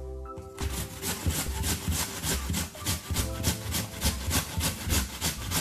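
Raw potato grated by hand on a metal box grater, about four scraping strokes a second, starting about half a second in.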